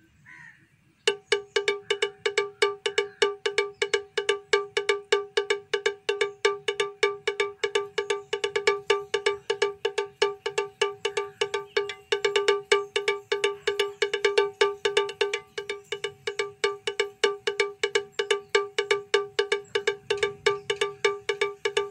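Background music: a single pitched note struck over and over in a quick, even rhythm, starting about a second in.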